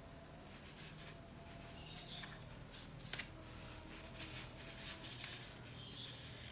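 Faint rubbing and rustling of a gasoline-soaked tissue wiping heavy grease off a CCTV lens's metal helicoid, with one sharp click about three seconds in.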